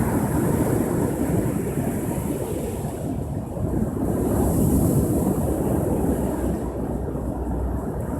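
Ocean surf breaking and washing up the shore, a continuous low rush that swells about halfway through, with wind rumbling on the microphone.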